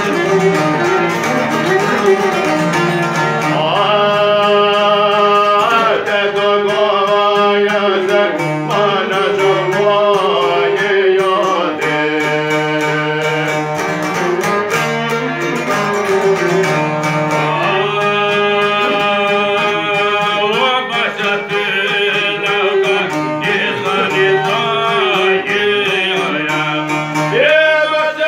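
Albanian folk music played live: a violin bowed on the lap and two plucked long-necked lutes, one a small çifteli, over a steady drone. Men's voices sing a wavering, ornamented melody in long stretches.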